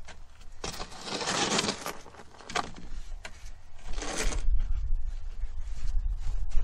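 Scraping and rustling with a few sharp knocks, as a person shifts about and handles tools under a raised van. A low rumble sets in about four seconds in.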